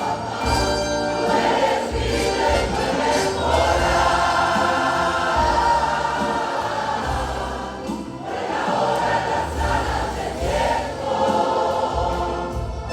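Church choir singing a Spanish-language worship song together, with accompaniment underneath, recorded live in the room.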